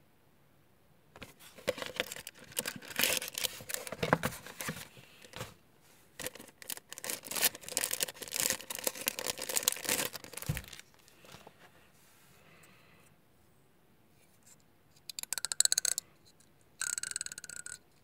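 Clear plastic packaging bag crinkling and rustling in the hands as the plastic beard-shaping template is taken out of it, in two long stretches of crackling, then two short crackly bursts near the end.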